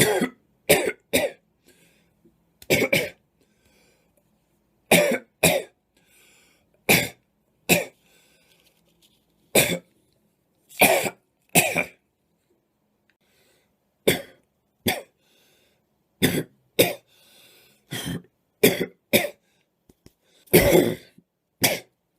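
A person coughing over and over, about twenty short, harsh coughs, some single and some in quick pairs, with pauses of a second or two between them.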